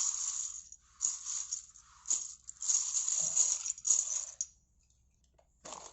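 Plastic bags of Lego bricks being handled: the plastic crinkles while the small bricks inside clink, in several short bursts that stop about a second before the end.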